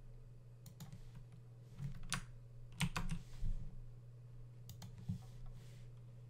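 Computer keyboard and mouse clicks: a handful of separate sharp taps, some in quick pairs, over a low steady hum.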